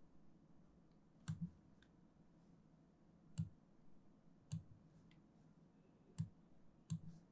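Sparse, sharp clicks from a computer mouse and keyboard, about five spread over several seconds and a couple of them doubled, over faint room hiss.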